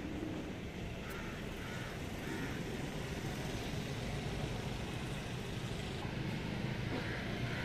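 Steady outdoor background noise: a low, even rumble with a faint hiss above it and no distinct events.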